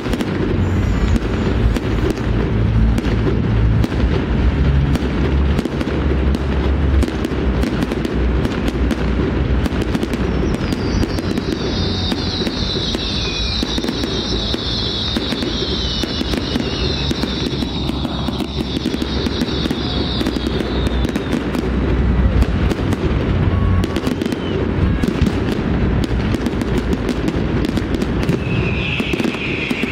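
New Year fireworks display: a dense, continuous barrage of bangs and crackling, with a long high-pitched hiss through the middle.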